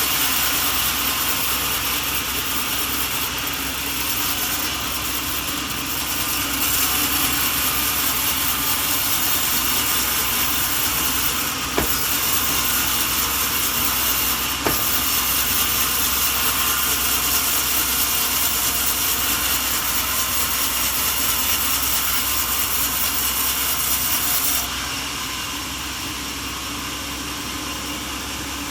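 Sawmill machinery running steadily with a saw cutting through wood, with two sharp clicks partway through. The sound drops to a quieter level near the end.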